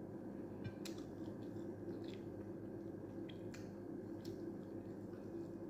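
A person chewing fried fish and picking it off the bone with the fingers, with a handful of faint sharp clicks scattered through, over a steady low hum.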